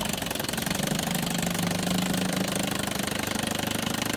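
1962 Johnson CD-19 5.5 hp two-cylinder two-stroke outboard motor running steadily in reverse gear, with a rapid, even firing rattle.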